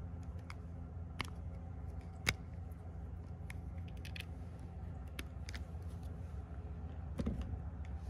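Cera+ PRO portable espresso machine running with a steady low hum as it brews. Scattered light clicks, with one sharper tick a little over two seconds in.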